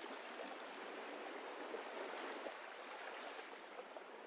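Faint, steady rushing noise with no distinct events.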